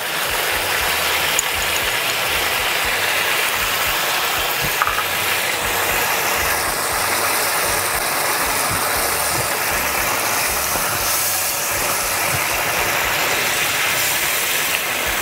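Sauce of ginger strips and soybeans sizzling at a hard boil in a wok, stirred with a wooden spatula. The sizzle is a steady hiss.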